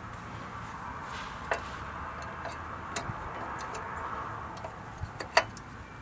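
Brake pads and caliper hardware clicking as new front pads are fitted into the caliper: a few sharp, separate clicks, the loudest near the end, over steady background noise.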